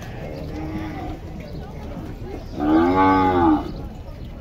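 Nelore cattle mooing: a fainter moo about half a second in, then a loud moo of about a second starting about two and a half seconds in, its pitch rising and then falling.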